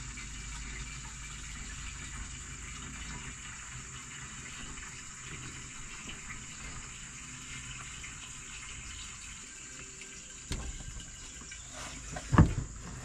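Gasoline pouring in a steady stream from a plastic gas can into a riding mower's fuel tank. Near the end come a few sharp plastic knocks, the loudest about twelve seconds in, as the can is tipped up at the filler neck.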